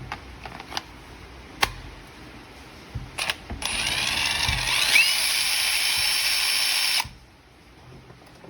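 Cordless impact driver (HiKOKI WH36DA converted to an 18 V battery) test-run for about three and a half seconds after a few handling clicks: the motor whine rises, holds steady and cuts off suddenly when the trigger is released.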